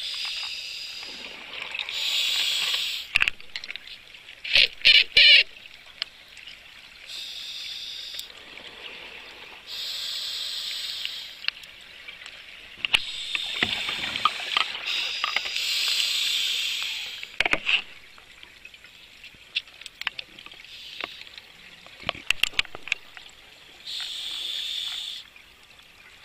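Scuba diver breathing through a regulator underwater. Each inhalation is a hissing rush of a second or two, and each exhalation is a burst of crackling bubble clicks, the pair repeating every few seconds.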